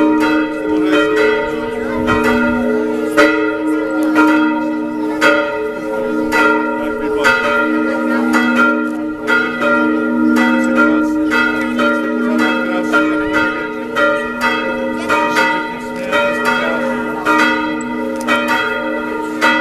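Several church bells ringing together in a continuous peal, strokes overlapping irregularly about once or twice a second over their lingering hum.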